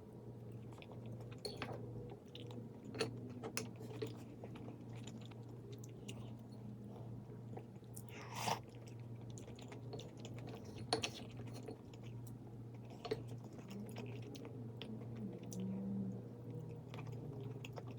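A person chewing and biting food, with scattered crunchy clicks and smacks, over a steady low hum.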